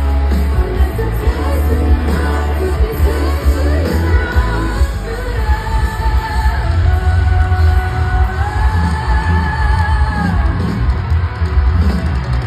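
Live pop-rock band playing over a festival PA, heavy booming bass under a woman's singing, with one sung line held for several seconds in the middle. Heard from within the crowd.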